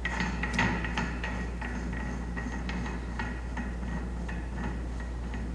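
Light, irregular metallic clicks and ticks from metal parts being handled and fitted, over a steady low hum.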